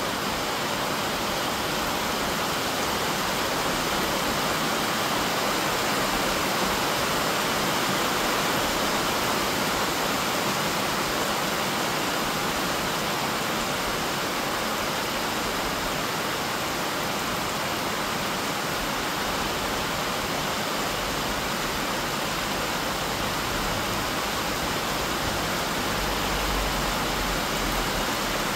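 Steady downpour of heavy rain, an even hiss of rain on pavement, cars and trees, with a low rumble near the end.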